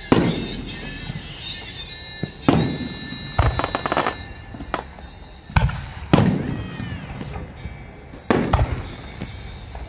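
Aerial fireworks shells bursting overhead: a string of sharp booms a second or two apart, each with a rolling echo, and a quick cluster of cracks about three and a half seconds in. The loudest bang comes about six seconds in.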